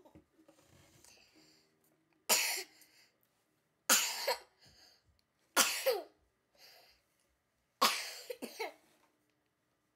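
A young girl coughing four times, each cough a sharp, loud burst, about one and a half to two seconds apart.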